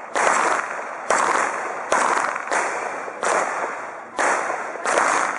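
Pistol fire at steel targets: about seven single shots at an unhurried, uneven pace, each loud crack trailing off slowly.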